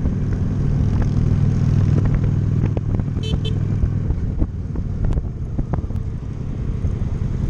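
Honda Shadow cruiser's V-twin engine running steadily while riding, its low even note clearest in the first half before it turns rougher. Two short high beeps sound about three seconds in.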